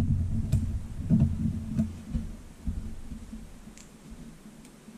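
Handling noise from a SIM card being fitted into a phone's small SIM tray by hand: low dull thumps over the first two seconds, then a few faint clicks.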